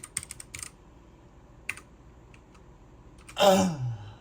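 Computer keyboard typing: a quick run of keystrokes, then a few single key presses, as a password is typed to unlock the computer. About three and a half seconds in comes a brief, louder sound that falls in pitch.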